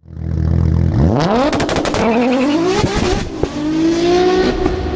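Car engine idling briefly, then revved hard with the pitch climbing steeply, a quick run of sharp exhaust pops and cracks, and the revs held high and steady near the end.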